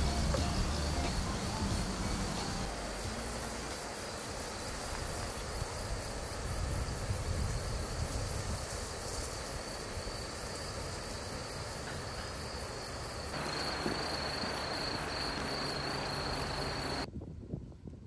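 Insects chirring in autumn grass: a steady high-pitched trill with a fast, even pulsing above it, which cuts off suddenly about a second before the end.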